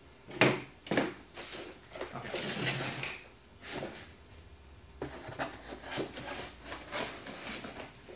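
Pieces of cardboard being handled on a workbench: a couple of sharp knocks, a longer scraping slide about two seconds in, then a run of short taps and rubs.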